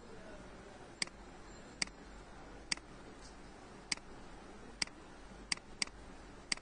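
Computer mouse button clicks picked up by the microphone: about nine short, sharp clicks at irregular intervals of roughly a second, with two in quick succession near the end, over faint room hiss.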